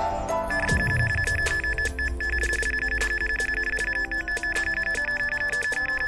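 Electronic carp bite alarm sounding a run: a fast, unbroken string of high beeps that starts about half a second in, as a fish takes line.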